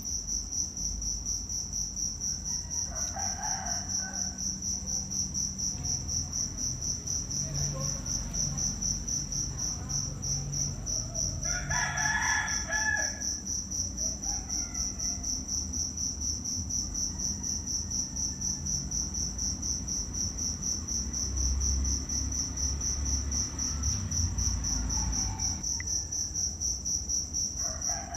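Insects chirping in a steady, rapid high-pitched pulse. A chicken calls three times over it, loudest about halfway through.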